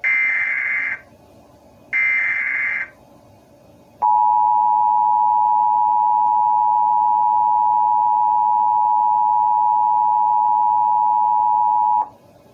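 Emergency Alert System broadcast tones. Two short bursts of the buzzy SAME digital header data come first, then a pause. Then the two-tone EAS attention signal holds steady for about eight seconds and cuts off abruptly, announcing an emergency alert message.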